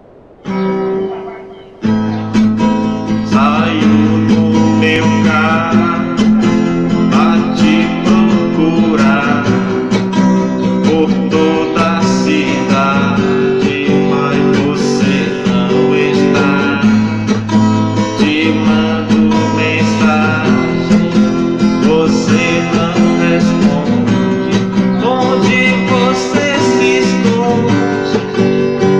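Guitar-led music playing through a car's sound system. A brief quieter opening gives way to the full song about two seconds in.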